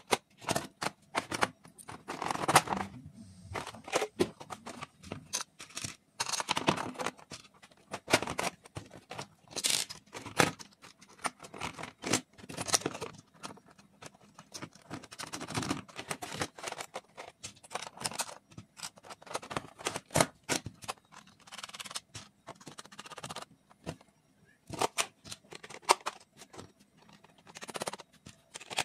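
Plastic electrical fittings (a fan regulator, a socket and a kit-kat fuse base) being handled and pressed into the cut-outs of a plastic switch board: a busy, irregular run of clicks, knocks and short scrapes.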